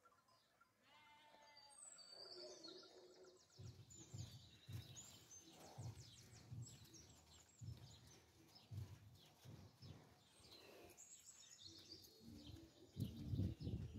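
Small birds chirping and twittering in the background. Irregular soft low thuds grow louder near the end.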